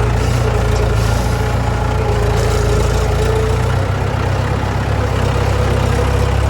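Heavy diesel engine running steadily at a constant speed, a deep hum with a faint wavering whine above it.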